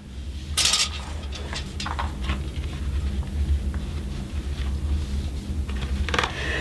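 Paper rustling and light handling noises as a thin booklet is opened and its pages handled, with one louder rustle about half a second in and smaller ones after it, over a steady low hum.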